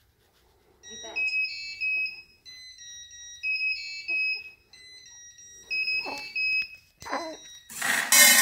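A DIY smart cat feeder's small speaker plays a beeping electronic melody of high notes. Near the end, dry cat kibble clatters loudly into the stainless steel bowl as the feeder dispenses.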